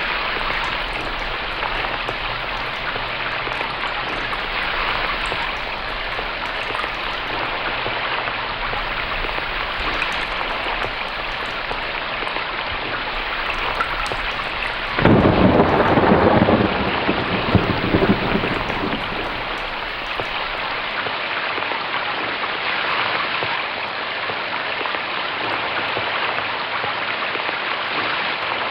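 Steady heavy rain, with a loud clap of thunder rumbling for a few seconds about halfway through.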